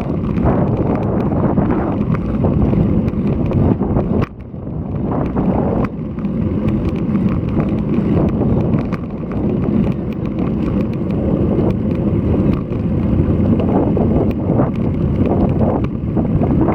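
Wind buffeting the microphone of a bike-mounted action camera during a road-bike ride, a dense low rumble that lulls briefly about four seconds in.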